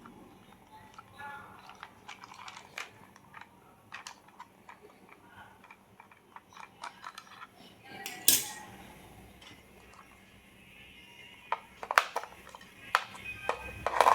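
A toy car and its packaging being handled: scattered light clicks and clatters, a short scraping burst about eight seconds in, and a quicker run of clicks and knocks near the end.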